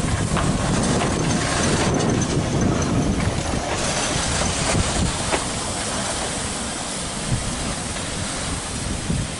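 Small Beyer Peacock 2-4-0 steam tank locomotive moving slowly along the rails, a low rumble with scattered clanks from wheels and motion.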